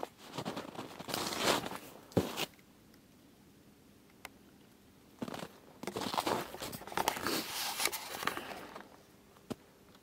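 Footsteps crunching through snow in two spells of walking, with a pause of a few seconds between them.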